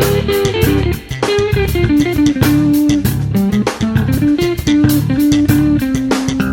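Background music: an electric guitar playing a melody over bass guitar and a drum kit with a steady beat.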